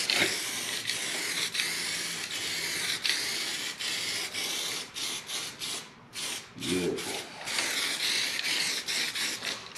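Aerosol spray can hissing as coating is sprayed onto bare welded sheet metal in long passes, with short breaks between passes about halfway through.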